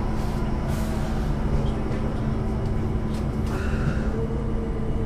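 Duewag/Kiepe B80D light-rail car running: a steady electric hum over a constant low rumble, with a second, higher hum joining about four seconds in.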